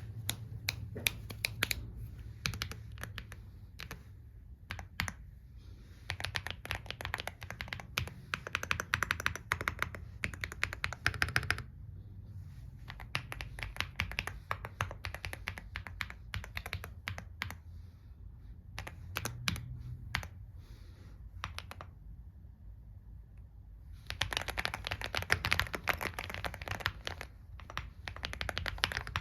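Typing on a WOB Rainy75 mechanical keyboard with tactile Gateron Quinn switches and PBT keycaps. Two fast runs of continuous typing are separated by slower, scattered single keystrokes and a brief pause.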